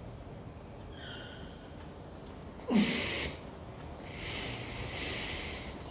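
A man's audible breathing in Ujjayi pranayama, done with the throat tightened. A sudden, short, forceful breath comes about three seconds in and is the loudest sound. A longer, hissing breath follows over the last two seconds.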